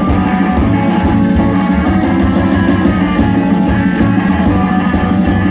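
Live rock band playing: electric guitar over a steady drum beat with cymbal strokes and a pulsing bass line.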